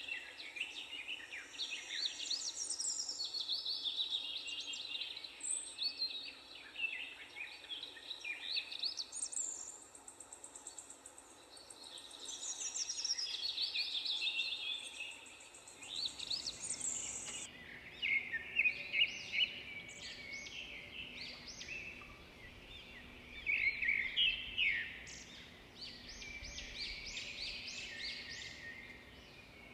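Several birds singing in the open, in overlapping chirps and short trills. A thin steady high hiss underneath stops abruptly just past halfway, after which the song continues over a faint low background hum.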